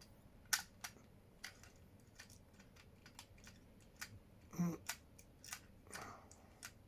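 Faint, irregular small clicks and taps, about a dozen spread unevenly, from hands working a disposable camera and its flash-charging contacts while the flash capacitor charges. A short low murmur comes a little after four and a half seconds.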